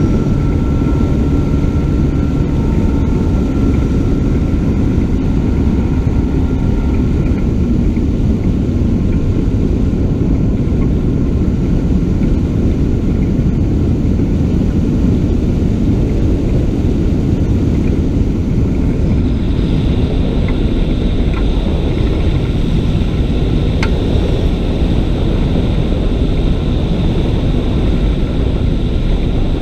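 Dragonfly ultralight's engine and pusher propeller running steadily in flight, under heavy wind rush on the wing-mounted microphone. The engine's pitched note is clearest for the first several seconds, then is mostly buried in the wind, and a thin steady high tone joins about two-thirds of the way in.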